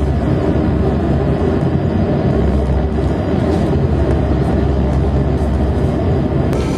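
Reactable tabletop synthesizer playing a loud, steady, low rumbling drone of dense electronic noise, with a click near the end.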